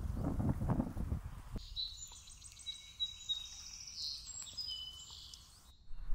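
Low rustling rumble of outdoor noise for about the first second and a half. Then a small songbird sings high chirps and short trills for about four seconds, cutting off abruptly near the end.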